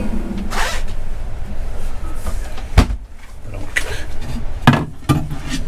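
Motorhome kitchen fittings being handled: a cupboard door with a pull-out wire basket tray, and the worktop cover over the sink, giving a series of knocks and clunks. The sharpest knock comes about three seconds in, with another near the end.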